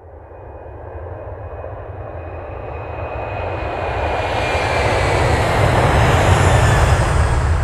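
Jet airliner engine roar, steady and growing louder throughout, with a faint high whine gliding slowly down in pitch.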